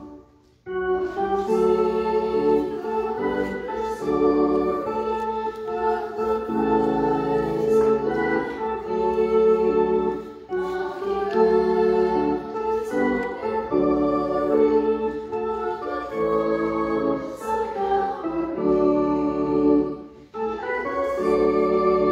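Organ music: sustained chords played in phrases, with brief breaks about half a second in and again near the end.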